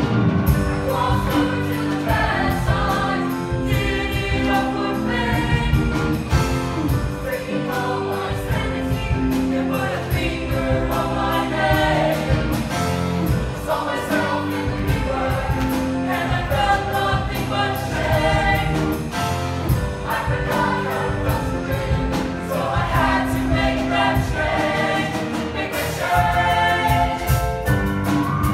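High school show choir singing in harmony over instrumental accompaniment with a steady beat.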